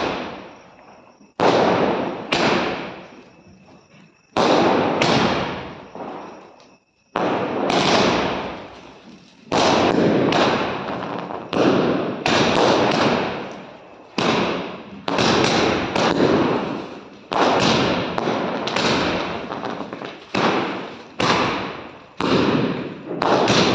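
Aerial fireworks going off one after another, a sharp bang about every second, each fading away before the next, starting about a second and a half in, like a multi-shot firework cake firing its shots in turn.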